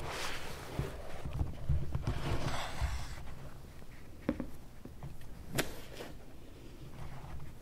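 Soft rustling twice, about a second each, then a few light clicks, over a low room rumble.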